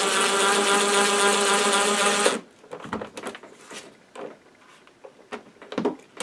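Cordless drill running steadily at one pitch, driving a mounting screw into a PVC electrical box, with the screw turning on without snugging up. The drill stops about two and a half seconds in, a few light clicks and handling knocks follow, and it starts again at the very end.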